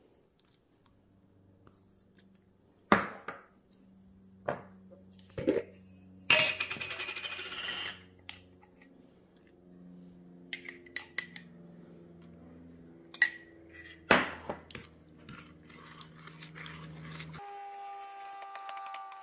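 A metal spoon clinking against a ceramic bowl and a glass jar while sauce ingredients are spooned in. There are a few sharp single clinks and a brief scraping rustle about six seconds in, then quick light clinks of stirring near the end.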